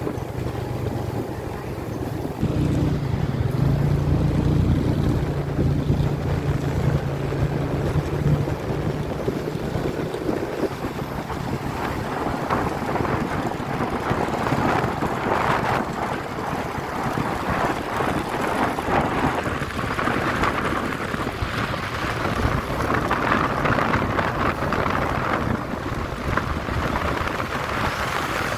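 A motorcycle engine running close by for several seconds near the start, then a steady rushing noise of wind buffeting the microphone.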